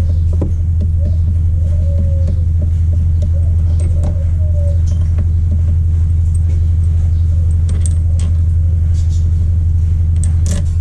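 A loud, steady low hum runs without change throughout, with scattered light metallic clinks of hand tools and parts being handled during differential bearing work.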